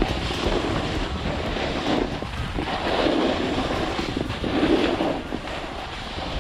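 Snowboard sliding and scraping over packed snow, with wind rushing over the action camera's microphone; the hiss rises and falls in swells as the rider turns.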